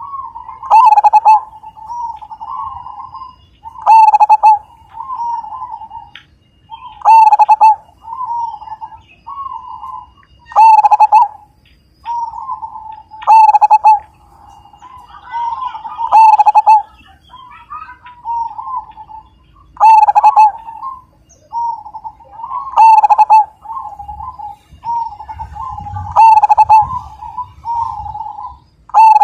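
Zebra dove (perkutut) cooing: a loud, rolling coo phrase comes back about every three seconds, with softer coos in between.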